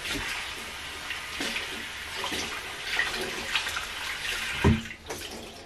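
Water running steadily from a tap, with a single knock about four and a half seconds in.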